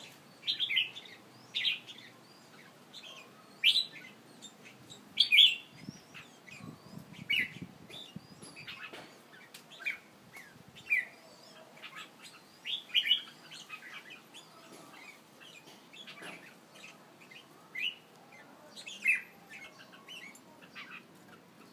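Caged songbirds chirping: short, sharp calls that drop in pitch, given one or two at a time at irregular intervals, some much louder than others.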